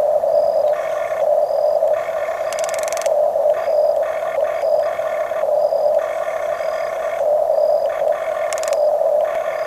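Electric motors and plastic gearboxes of radio-controlled toy construction machines whining as they work, over a steady drone, with the whine starting and stopping as the controls are worked. A short high beep repeats regularly throughout.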